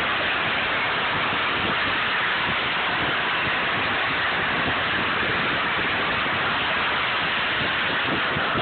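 Steady rushing noise of wind on the microphone and wheels rolling on asphalt, at speed while the plastic Power Wheels ride-on is towed along the road.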